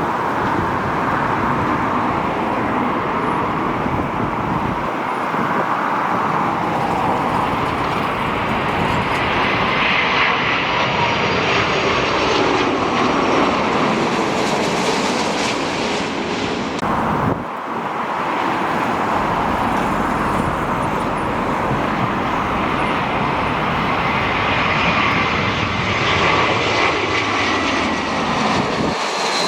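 Airliner's jet engines running loudly as it passes the airfield: a steady rush of engine noise with a whine that slowly falls in pitch as it goes by. The sound breaks briefly a little past the middle and then carries on.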